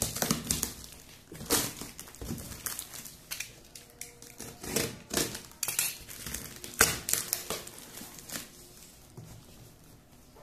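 Cardboard wrapped in brown packing tape being torn open by hand: irregular crackling rips and rustles, growing quieter near the end.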